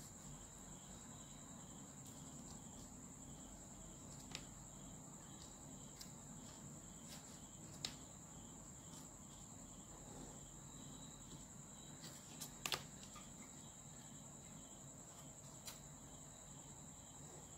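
A quiet room with a steady high-pitched whine, and a few faint short taps and clicks as a pen and a plastic ruler are handled on paper while a pattern is drawn.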